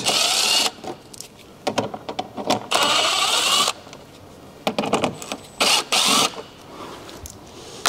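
Cordless impact wrench with an 8 mm socket running in short bursts to back out wheel-arch liner fixings: three longer runs of under a second each, about three seconds apart, with shorter blips between.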